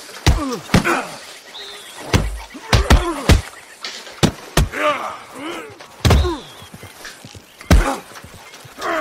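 Sharp hard taps and knocks on a glass tabletop from a crow pecking at it, with several short, arched, pitched calls from the crow in between.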